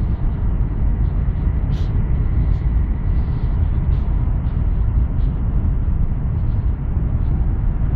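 NSB Class 74 Stadler FLIRT electric multiple unit running along the line, heard from inside the passenger car: a steady low rumble with a faint steady whine and a few light clicks.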